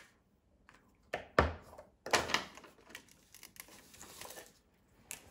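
Plastic felt-tip markers handled on a wooden tabletop: a few clicks from a marker cap, a thump about a second and a half in, then knocks and a scratchy rattle as a marker is put back among the others.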